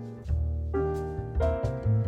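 Background music: piano chords over a plucked double bass, in a mellow jazz style.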